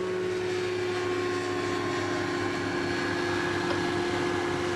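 Zenair CH 701 light aircraft's engine and propeller running at a steady, even drone, holding one pitch without revving up or down.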